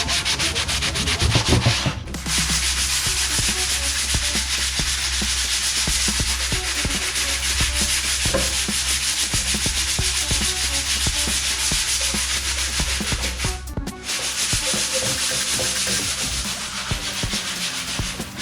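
Sandpaper rubbed by hand over a wooden tabletop in quick, repeated scrubbing strokes, taking off the old painted finish. The scrubbing breaks off briefly twice.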